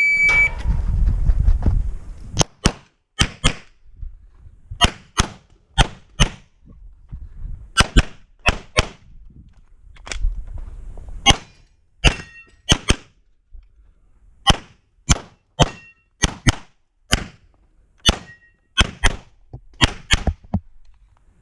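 A shot timer's start beep, then a handgun fired through an IPSC stage: about 35 shots over some 20 seconds, mostly in quick pairs, with short gaps as the shooter moves between positions.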